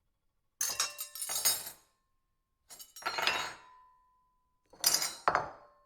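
Metal silverware clattering and clinking on a ceramic plate in three separate bursts, each a quick run of clinks ending in a short ring from the plate.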